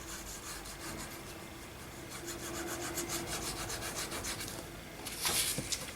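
Glue being rubbed onto a paper journal page in rapid, scratchy back-and-forth strokes, followed by a brief louder rustle of paper near the end.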